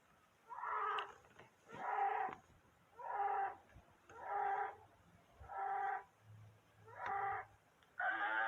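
An Asian ox calling over and over: short pitched calls of about half a second each, repeating roughly once a second, about eight in all.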